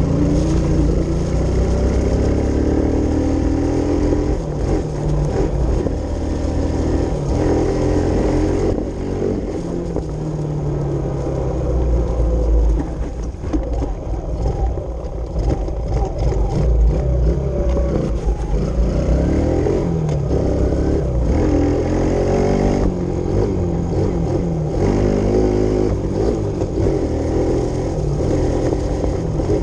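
Kawasaki KLX110 pit bike's small single-cylinder four-stroke engine revving as it is ridden, its pitch climbing again and again as the throttle is opened and dropping back at each shift or easing off, heard close up from the handlebars.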